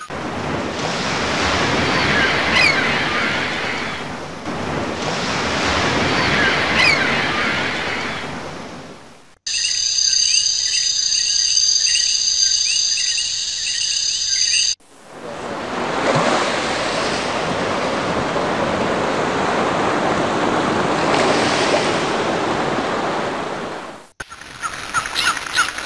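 Ocean waves washing in and out in slow swells, used as a sound effect. For about five seconds in the middle it cuts to a different, high fluttering sound made of several held pitches, then the waves return.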